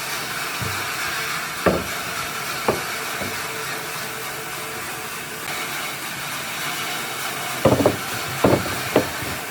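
A steady, loud hiss, with a few sharp knocks: two single ones in the first third and a quick cluster near the end.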